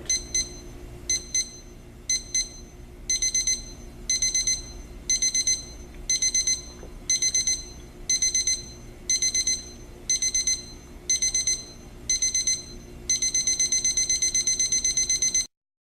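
Equity 30227 electric alarm clock's alarm beeping high-pitched: a few short single beeps at first, then bursts of rapid beeps about once a second that grow longer. About 13 seconds in it turns to continuous rapid beeping, which cuts off suddenly near the end.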